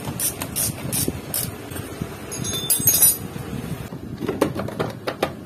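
Small metal bolts clinking and jingling in the hand, with light clicks and taps, while the cooling fan is being fitted back over a scooter's magneto. The clinking is loudest a little over two seconds in, for under a second.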